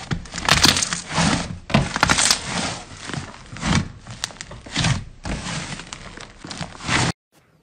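Thick yellow fluffy slime squeezed and pressed by hands: a series of wet squishes, roughly one a second, each full of fine crackling pops. The sound cuts off abruptly near the end.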